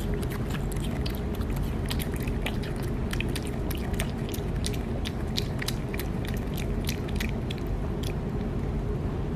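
Chewing with many irregular, sharp crunches over a steady low background noise, like something crunchy being bitten and eaten.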